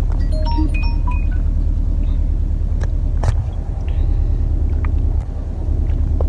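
Steady low rumble of a car's road and engine noise, heard from inside the cabin.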